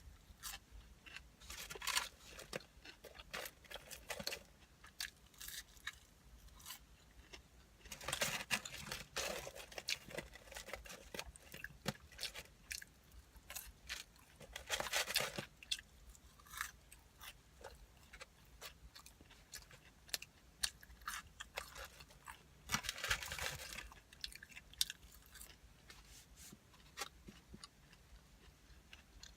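A person chewing and crunching curly fries close to the microphone: a run of small crunchy bites and mouth sounds, with a few louder crunchy stretches now and then.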